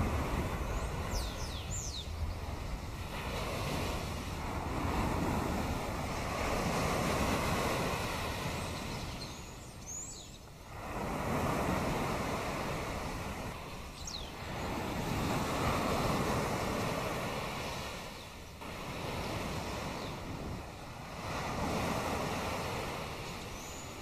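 Sea waves washing ashore, the rush swelling and falling away every few seconds. A few short, high bird calls come through now and then.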